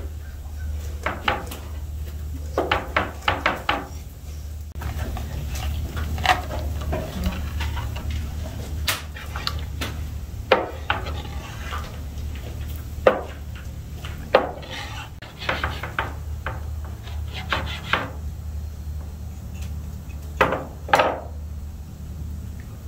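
Meat cleaver chopping a raw whole chicken into quarters on a wooden cutting board: irregular sharp knocks of the blade through the bird and onto the board, a dozen or so spread out with short pauses between.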